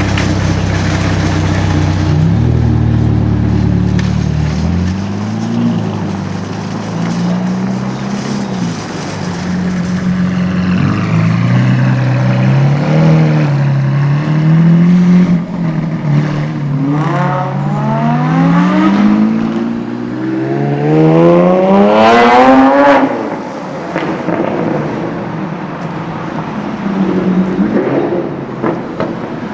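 Sports car engine running low and steady for a few seconds, then revving and pulling away with its pitch climbing. It is loudest in a long rising sweep about three quarters of the way through that cuts off abruptly, with a smaller rev near the end.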